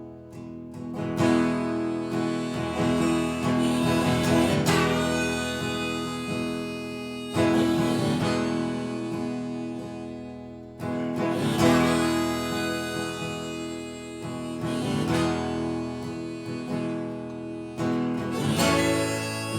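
Instrumental break of a live country song: acoustic guitar strumming sustained chords, with a fresh strum every few seconds.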